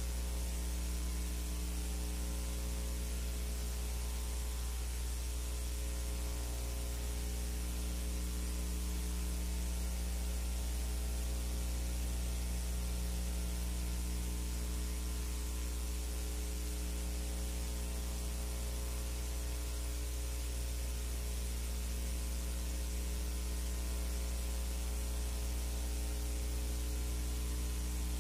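Steady electrical hum with an even hiss over it, unchanging throughout. It is the background noise of a silent film's transfer, not sound from the filmed scene.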